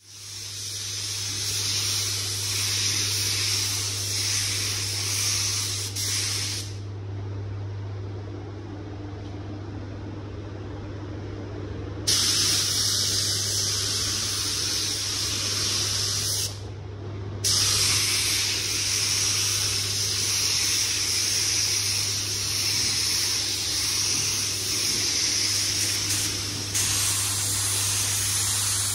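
Gravity-feed spray gun spraying 2K car paint: a steady hiss of air and atomised paint. It cuts out for about five seconds a quarter of the way in and for about a second just past halfway, where the trigger is released. A steady low hum runs underneath.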